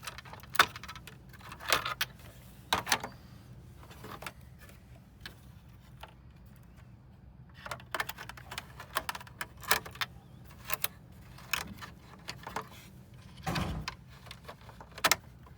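Irregular sharp clicks and short clatters of tools and small metal parts being handled while taking apart an all-in-one computer, over a faint steady low hum.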